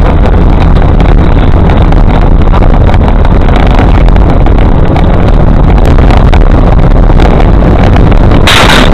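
Vehicle driving fast on a rough road: a loud, steady rumble that overloads the microphone, with many sharp rattles and knocks, and a harsher burst of noise near the end.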